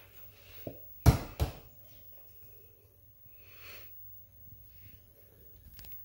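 Two dull thumps about a third of a second apart, then a short breathy hiss a couple of seconds later.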